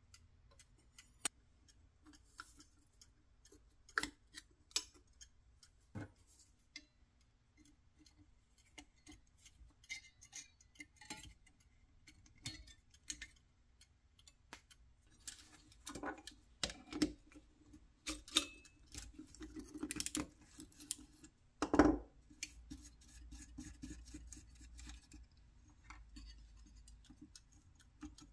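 Small metal parts of a 1960s Duncan parking meter's timer mechanism clicking and clinking as they are handled and worked with a screwdriver: irregular light clicks and taps, with a louder knock about three quarters of the way through.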